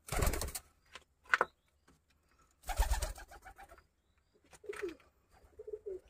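Pigeons in a loft: a brief flurry of wing flaps at the start and another around the middle, with a couple of short, low coos near the end.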